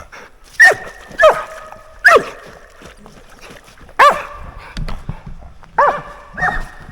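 A dog barking close by, six loud, pitched barks at uneven intervals.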